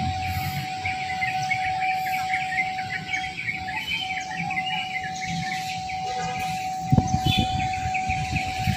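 Birds chirping busily over steady outdoor background noise and a constant high tone, with a sharp thump about seven seconds in.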